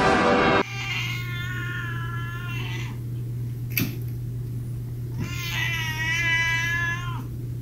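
A loud sound cuts off abruptly just over half a second in. Then a cat yowls in two long, wavering calls of about two seconds each, the second beginning about five seconds in, over a steady low hum, with a short click between the calls.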